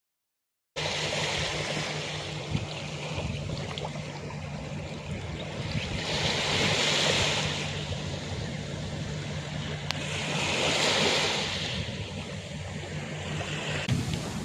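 Surf washing up a sandy beach in a steady hiss, swelling with two incoming waves about six and ten seconds in.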